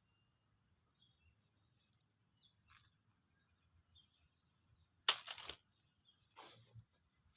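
Steady high insect drone with faint bird chirps, broken about five seconds in by two short loud rustles, the first the louder.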